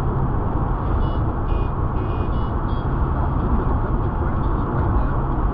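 Steady road and engine noise of a moving car, a continuous rumble with no clear change. A few faint, short, high beeps come between about one and three seconds in.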